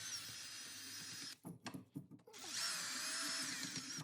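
Handheld power tool running at speed to clean rust off the wheel-bearing hub area: a steady whine that stops just over a second in, a few light knocks, then the tool spins up again about halfway and keeps running.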